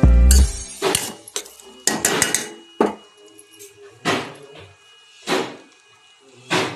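Kitchen utensils knocking and clinking against pots or dishes: about eight separate strikes spread over several seconds, some with a brief metallic ring. Background music fades out in the first half second.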